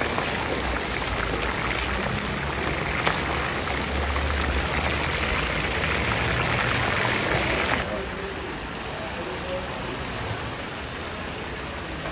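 Chunks of meat frying in deep hot oil in a huge cauldron, a steady sizzle like heavy rain. About eight seconds in the sizzle drops to a quieter, duller hiss.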